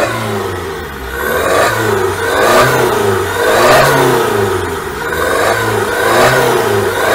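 Car engine revved in repeated short blips, about once a second, through a Remus valvetronic aftermarket exhaust with its valves switched closed from the remote, the exhaust's quiet mode.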